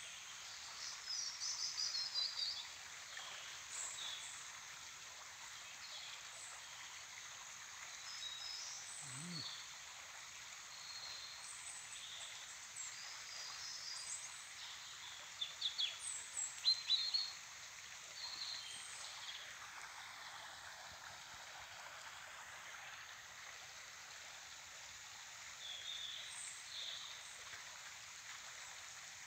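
Steady flow of a forest stream, with birds chirping and calling on and off over it; the loudest burst of calls comes about halfway through.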